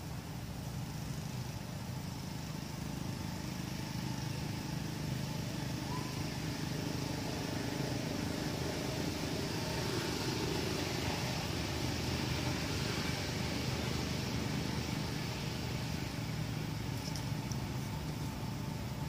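Steady outdoor background noise: a low hum under an even hiss, with no distinct calls or knocks.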